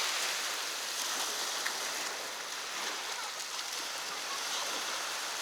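Steady wash of gentle surf on a beach, an even rushing with no distinct breaks.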